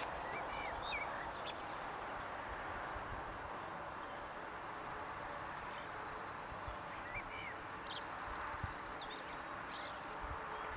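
Steady rushing background noise with a few short bird chirps: a pair about a second in and again around seven seconds, and a brief rapid trill near eight seconds.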